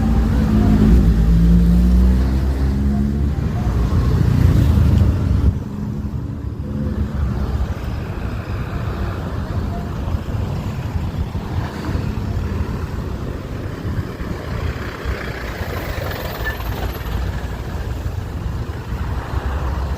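A motor vehicle's engine passes close, its pitch rising, and drops away suddenly about five seconds in, leaving steady street traffic noise.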